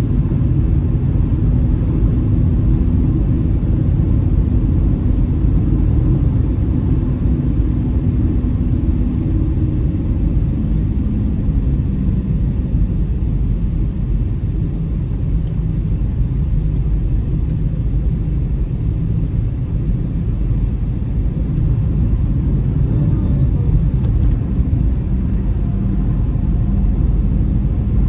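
Steady low rumble of road and engine noise inside a moving car's cabin, with a faint hum that fades out about a third of the way through.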